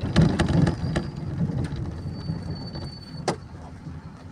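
Bus running and slowing, heard from inside, with rattling knocks in the first second. A thin high squeal starts about two seconds in and is cut off by a sharp clack just after three seconds, then the running sound dies down.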